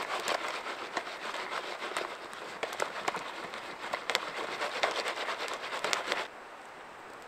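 Wood campfire crackling, with many sharp pops over a steady hiss. The crackling stops abruptly about six seconds in, leaving only a faint steady hiss.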